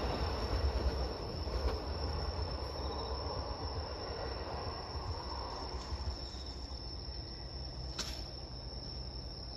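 A JR E233 series 3000 and E231 series 1000 electric train, coupled together, rumbling away into the distance and slowly fading. Insects chirr throughout in a steady high tone, and a single sharp click comes about eight seconds in.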